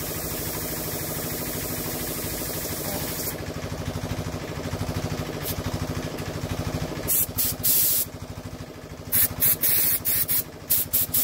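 Gravity-feed spray gun blowing paint in short trigger bursts of loud hiss from about seven seconds in, after a steady hiss of air that stops about three seconds in. Under it an air compressor runs steadily with a fast regular pulse.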